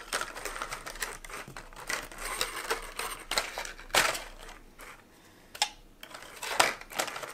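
Stiff clear plastic blister packaging crinkling and clicking as small toy pieces are pulled out of it, with sharper snaps about four seconds in and again near the end.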